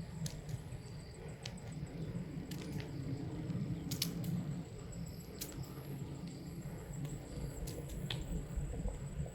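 Wind rumbling on the microphone, with scattered faint clicks and a thin, high, steady whine behind it.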